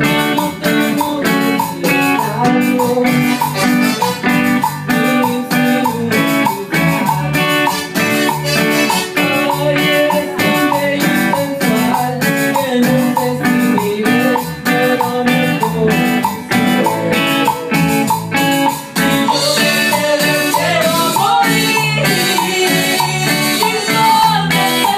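A live band playing a cumbia, with guitar over a steady beat and a woman singing into a microphone.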